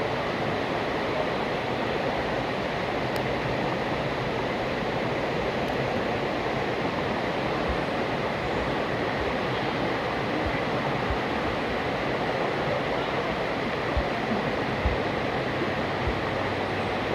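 Rainforest river rushing steadily, an even wash of water noise, with a few soft low thumps in the second half.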